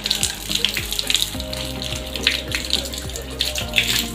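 Water poured from a plastic dipper, splashing and running down the slats of a dusty horizontal window blind as the dust is rinsed off.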